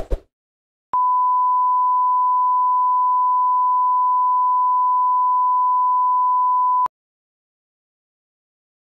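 A single steady electronic beep at one pitch, held for about six seconds and cut off abruptly, the classic bleep sound effect. A brief scrape of noise comes just before it, right at the start.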